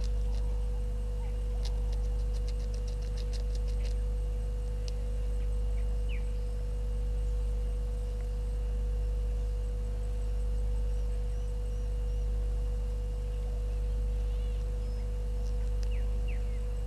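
Steady low electrical hum with a steady higher whine over it, swelling gently in level about every second and a half. A run of faint quick ticks comes in the first few seconds, and a few faint short high chirps come later.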